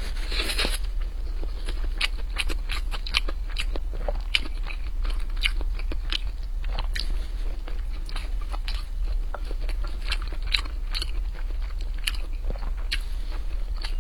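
Close-miked mukbang eating: chewing and biting a mapo tofu rice bowl, with many short wet mouth clicks and smacks.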